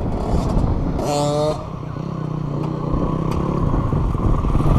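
Dirt bike engine running steadily close by, growing louder toward the end, with a brief shout about a second in.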